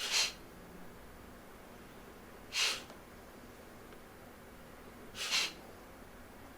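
Kapalabhati breathing: short, sharp forced exhalations through the nose, three in all, about two and a half seconds apart.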